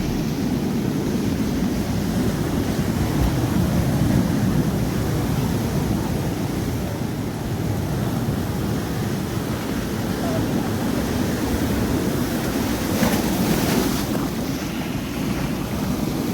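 Sea waves washing onto the beach, with wind buffeting the microphone. A brighter hissing wash comes about thirteen seconds in.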